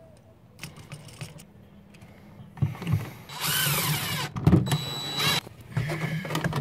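DeWalt 20V cordless driver running a screw into a metal electrical box to mount a duplex outlet, in two runs of about three seconds together. The motor's whine rises as it spins up, then holds steady after a sharp click partway through.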